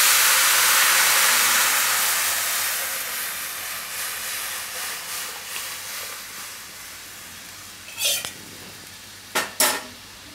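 Kadhi batter of buttermilk and gram flour poured into a kadai of hot ghee and oil tempered with whole spices. It gives a loud hiss and sizzle that fades away over several seconds. A few short clinks come near the end.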